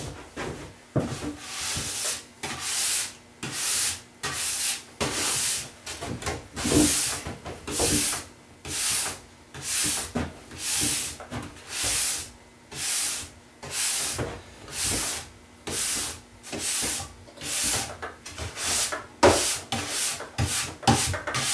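Stainless steel brush stroked along a snowboard base, about one stroke a second, brushing leftover wax out of the base structure.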